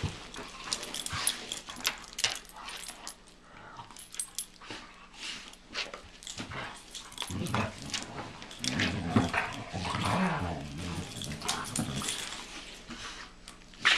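A Doberman and a Belgian Malinois play-fighting: scuffling, snapping and mouthing at each other, with low growling about halfway through.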